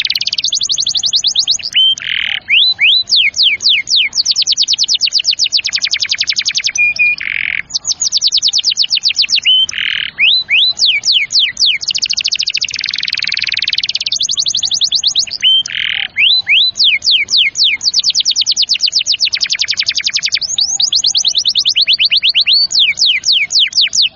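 Domestic canary singing a long, loud song of rapid trills: each trill is a quick run of the same sweeping note repeated many times a second, and the bird switches to a new trill every second or two, with a few buzzy and held notes between them.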